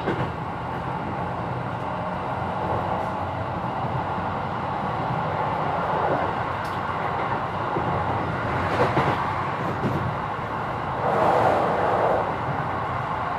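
Running sound inside a Keikyu New 1000 series electric train, motor car DeHa 1204 with a Mitsubishi SiC-VVVF inverter, on the move: a steady rumble of wheels on rail. A louder rush comes about nine seconds in and again about eleven seconds in.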